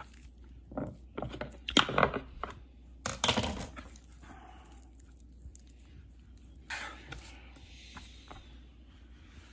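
Knife cutting raw lamb on a wooden cutting board: a few short scrapes and knocks of the blade and meat against the board, the loudest about two and three seconds in and a smaller one near seven seconds, with quiet handling of the meat in between.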